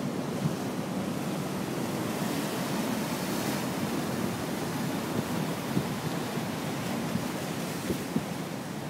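Storm-swell sea waves breaking and surging onto the shore and rocks in a continuous rushing wash, with a big wave crashing about three seconds in.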